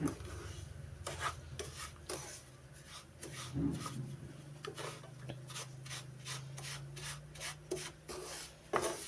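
Wooden spoon stirring and scraping semolina around a nonstick pan as it toasts for halva: short rasping strokes, about three a second, over a low steady hum.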